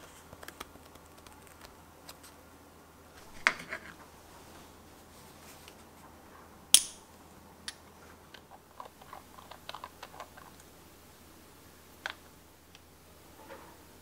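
Small handling sounds of a pen and a glass ink bottle on a desk: one sharp click about seven seconds in, then a run of light ticks and a tap as the bottle's screw cap is taken off and set down.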